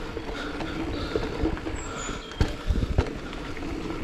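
Giant Trance E+2 electric mountain bike ridden over a dirt trail: the motor's steady whine with rattles and knocks from the bike over rough ground, two sharper knocks about two and a half and three seconds in.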